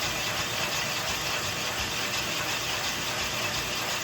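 Connecting-rod honing machine running steadily, its stones working the big-end bore of a 302 Ford connecting rod to size.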